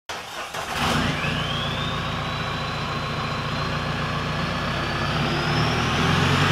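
Intro sound effect for a logo: a steady low engine-like drone under a high whistle. About a second in, the whistle rises quickly, then keeps climbing slowly until it cuts off suddenly.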